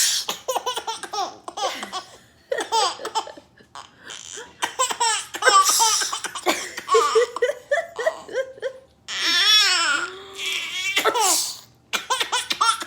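A baby laughing hard in quick runs of high-pitched laughs, set off each time by a woman's pretend sneezes, which come as short breathy bursts between the runs, several times over.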